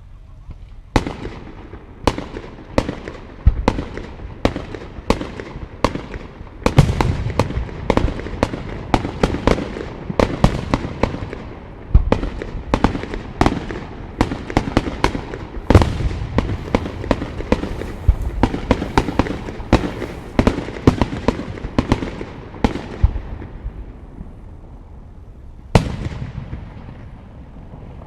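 Fireworks display: a rapid, irregular barrage of sharp aerial shell bursts and crackles, each bang echoing, starting about a second in, densest through the middle, then thinning out, with a lone loud burst near the end.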